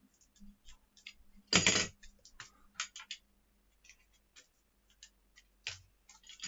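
Cardboard card mailer handled and pried open by hand: scattered small clicks and scratches, with one louder scrape lasting about half a second roughly a second and a half in.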